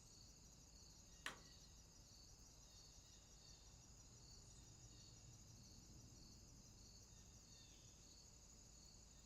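Faint chorus of night insects such as crickets: a steady high trill with a softer chirp repeating about every two-thirds of a second. A single sharp click sounds about a second in.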